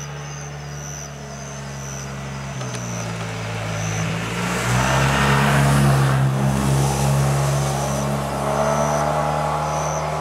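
A motorcycle approaches and passes close by, its engine and tyre noise swelling to a peak about six seconds in and then easing off, over a steady low engine hum.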